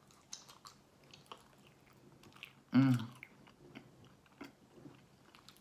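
A person chewing french fries close to the microphone, with many small wet mouth clicks. About three seconds in there is one brief, loud hum from the eater's voice.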